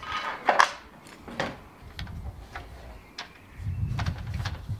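Hollow aluminium profiles of a kit patio roof knocking and clinking against each other as they are handled and laid on the grass, a string of separate knocks, with a low rumble near the end.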